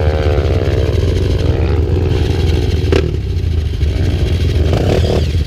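Trail motorcycle engine running steadily, with a sharp knock about three seconds in.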